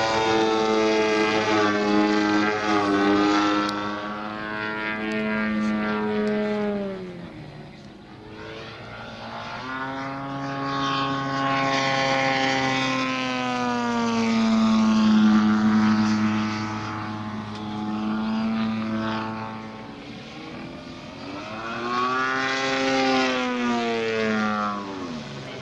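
Desert Aircraft DA-120 twin-cylinder two-stroke petrol engine with canister mufflers and a 28x12 propeller, flying a large RC Extra 300 through aerobatics. The engine note falls and quietens as the throttle is cut, then rises as it is opened again, twice over, and falls once more at the end.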